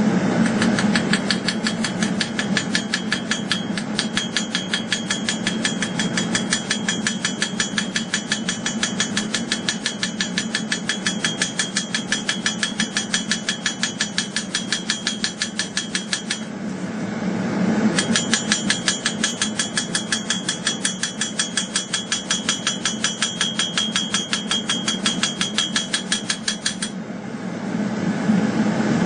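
Hammer blows on steel while forging a bowie knife blade: a fast, even rhythm of several ringing strikes a second, over a steady low hum. The hammering runs in two long bouts, broken by a pause of a second or two at about two-thirds of the way through.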